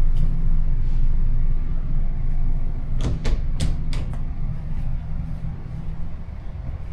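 Steady low rumble inside a sleeper train carriage, with a few sharp clunks about three to four seconds in, like doors or fittings knocking.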